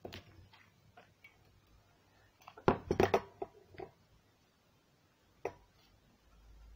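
Hard craft items, among them a hot glue gun, knocked and set down on a wooden tabletop: a few light taps, then a quick cluster of loud clacks about three seconds in and a single tap later. A low hum comes in near the end.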